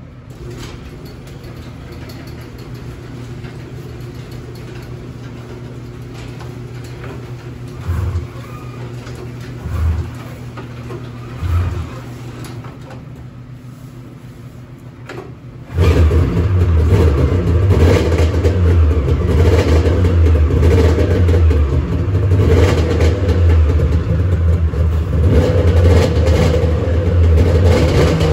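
Polaris two-stroke snowmobile engine being started: three short low bursts, then about halfway through it catches and runs steadily and loudly.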